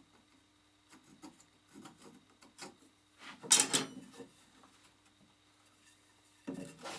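Light scratching and rubbing on wood as a pine bracket and plywood are handled and marked with a pencil. A few short scratches come first, then a louder scrape about three and a half seconds in and another just before the end.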